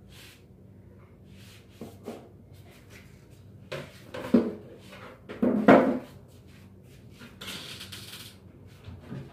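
A wooden cabinet being handled and shifted: a series of wooden knocks and thumps from its panels, loudest about four to six seconds in, then a scraping rub near the end.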